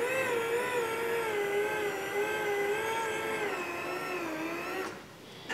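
Electric drive of a model F-14's swing-wing mechanism whining as it sweeps the wing, its pitch wavering up and down; it cuts off suddenly about five seconds in.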